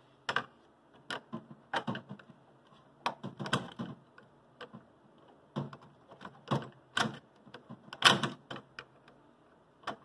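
Irregular plastic clicks and short scrapes as a screwdriver and fingers work the wire connectors off a refrigerator thermostat in its plastic housing, with the loudest cluster about eight seconds in.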